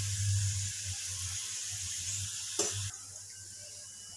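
Ghee-brushed paratha sizzling softly on a hot iron tawa, over a low steady hum. A light knock comes about two and a half seconds in, and the sizzle grows quieter just after it.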